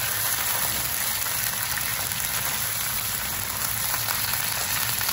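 Lobster tails and sliced garlic sizzling in hot oil in a wok, a steady frying hiss.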